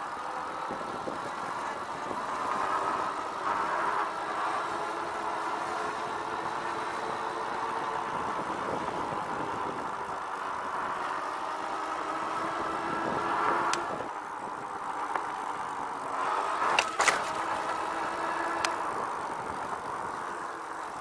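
RadRover e-bike under way on pavement: a steady whining hum from its rear hub motor and fat tyres, rising a little in pitch and then dropping about two-thirds of the way through. Several sharp knocks in the second half.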